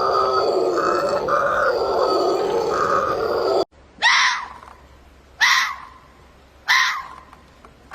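An animal grunting in a rough, continuous run, cut off abruptly a little after three seconds in; then a different animal gives short sharp calls, about one every 1.3 seconds, each dropping steeply in pitch.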